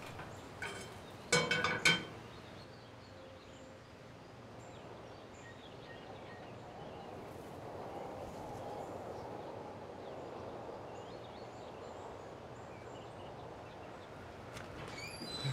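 Quiet room ambience with faint, scattered bird chirps. A short, ringing clatter sounds about a second and a half in.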